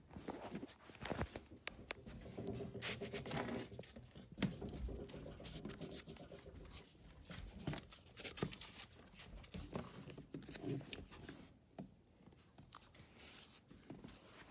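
Rustling and scattered light clicks and taps as foam Nerf darts are gathered by hand from a wooden parquet floor, mixed with the phone's own handling noise.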